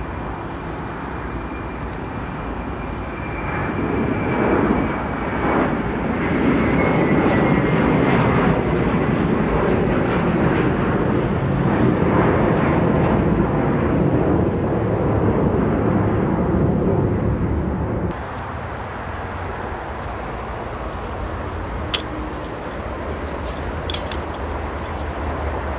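Airliner jet engines passing: a faint falling whine, then a loud engine rush that builds over a few seconds and holds steady before cutting off suddenly about eighteen seconds in.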